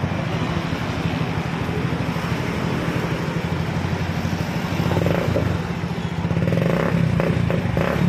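Bajaj Pulsar NS160 fuel-injected single-cylinder engine running steadily at idle, with a couple of light throttle blips about five and seven seconds in.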